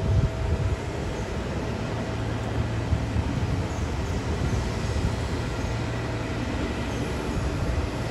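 Steady drone of airport ramp machinery around an airliner at the gate: a continuous low hum with a faint steady whine above it.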